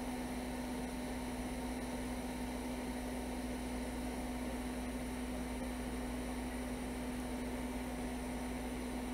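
Steady electrical hum with an even hiss from running workbench equipment, one low drone held at the same pitch throughout.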